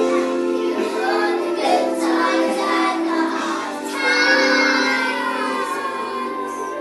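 Children singing a song with instrumental accompaniment, ending on a long held note that fades away near the end.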